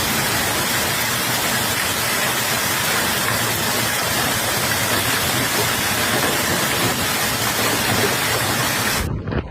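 Heavy storm downpour: a loud, dense, steady hiss of precipitation pounding down, cutting off abruptly near the end.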